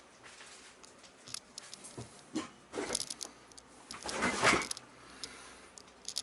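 Handling noises: a series of sharp clicks and short rustling scrapes, the loudest a rushing scrape about four seconds in.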